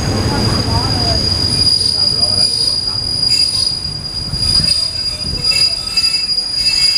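Passenger train slowing into a station, its brakes and wheels giving a steady high squeal over the low rumble of the running gear. More squeal tones join about halfway through.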